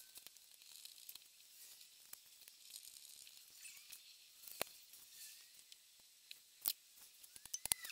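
Faint clicks and taps of a small screwdriver against the metal body and parts of a Walbro WG8 carburettor being taken apart by hand: a sharper click about four and a half seconds in, another near seven seconds, and a quick run of small clicks near the end.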